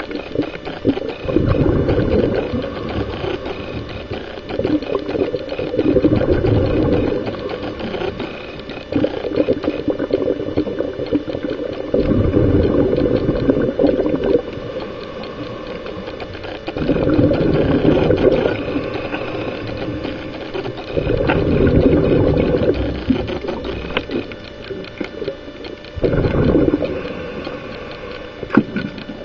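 Scuba regulator breathing underwater: bursts of bubbling exhaled air every four to five seconds, with quieter stretches between breaths.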